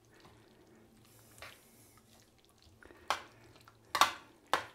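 Fingers picking at hot braised cabbage in a metal roasting tin: mostly quiet, with a few short, sharp clicks and smacks in the second half.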